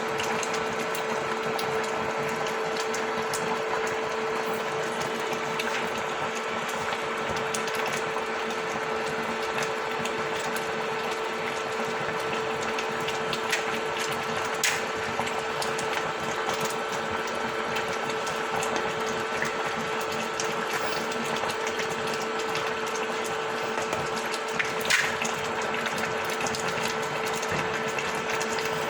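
Steady mechanical whirring hum, unchanging throughout, with a few sharp clicks along the way.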